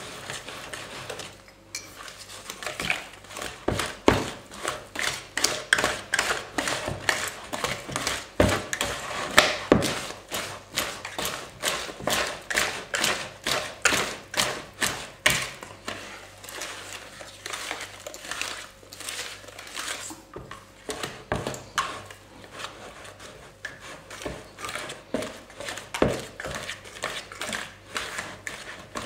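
Brownie batter being stirred by hand in a plastic mixing bowl: rhythmic scraping and slapping of the utensil through the thick batter and against the bowl, about two strokes a second.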